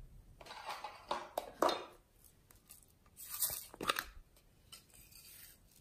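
Hands handling small hard plastic containers of slime add-ins, making short crackling and rattling handling noises in two spells, one in the first two seconds and another just past three seconds.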